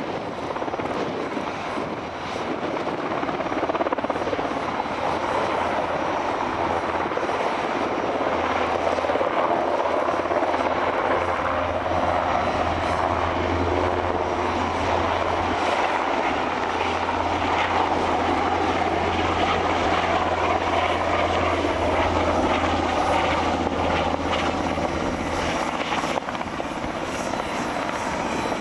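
Sikorsky S-92 helicopter's turbine engines and rotors running loud and steady as it hovers low, then climbs away, with a steady low drone through most of it.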